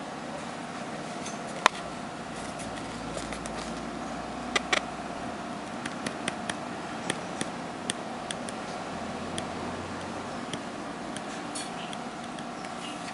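Light plastic clicks and taps as a plastic radio knob and a glue bottle's applicator tip are handled, over a steady background hum. A sharper click comes about two seconds in and a pair a little before the halfway point, then scattered faint ticks.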